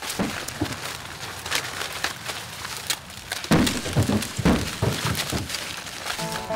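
Dry corn husks and stalks rustling and crackling as ears of corn are hand-picked and husked, with several dull thuds in the second half.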